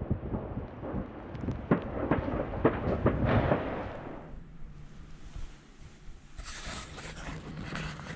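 Fireworks going off across the city: a string of bangs, many in the first four seconds, then thinning out.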